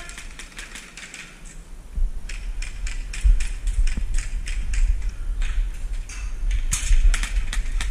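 A quick, uneven series of sharp clicks and knocks, busier from about two seconds in, over a low rumble.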